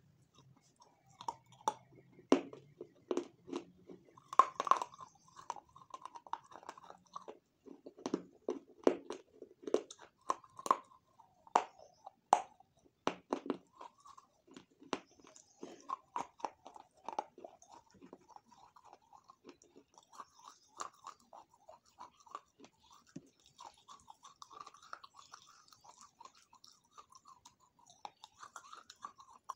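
Close-up mouth sounds of eating: a bite, then chewing with sharp crunchy crackles, loudest over the first half and settling to softer steady chewing in the second half.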